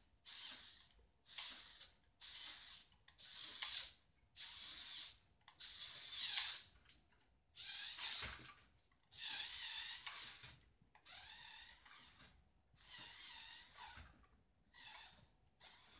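A child's voice making repeated whooshing 'shhh' sound effects, about one a second, for a swinging toy pendulum ride. The later whooshes are longer and softer, and a few turn into wavering squeals.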